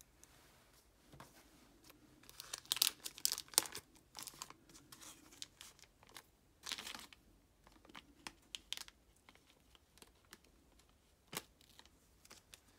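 Clear plastic packaging bag crinkling and tearing as it is opened by hand, in uneven clusters of crackles, loudest about two to four seconds in and again near seven seconds. A single sharp click comes near the end.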